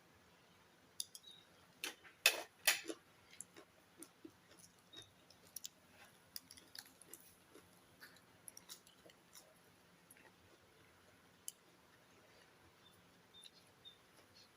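Someone eating: scattered small clicks and crunches of chewing and handling food, loudest in a short cluster about two seconds in.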